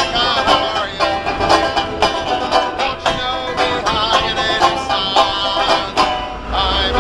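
Resonator banjo picked in a quick bluegrass rhythm, with a man singing along over it.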